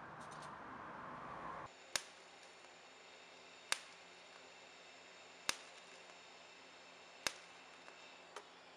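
TIG welding torch tack-welding small scrap-metal pieces: four sharp snaps as the arc strikes, evenly spaced a little under two seconds apart, with a fainter one near the end. Before them a steady hiss stops abruptly about two seconds in.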